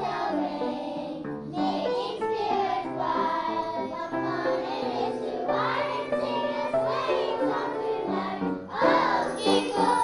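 Children's choir singing a song with instrumental accompaniment, growing louder near the end.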